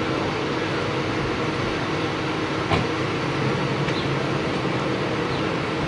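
Steady street noise with the constant hum of an idling engine, and one short knock a little under three seconds in.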